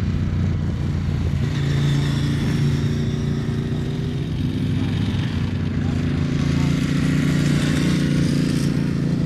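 Sport motorcycle engines running hard, the revs rising and falling as the bikes ride through the corners. More than one engine is heard at once.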